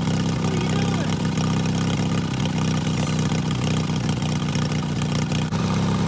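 Turbocharged Briggs & Stratton engine of a John Deere lawn tractor idling steadily.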